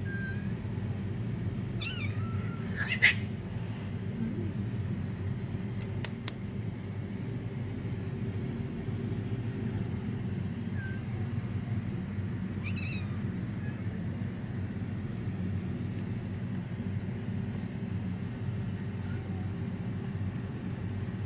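Kittens meowing a few short times, high-pitched, over a steady low background hum, with a sharp click about three seconds in.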